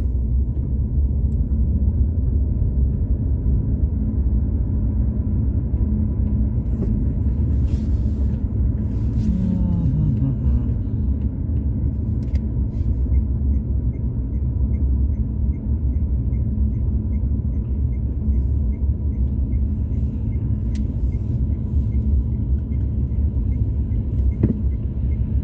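Car engine and tyre rumble heard from inside the cabin while driving in city traffic, a steady low drone, with the engine note falling briefly about ten seconds in.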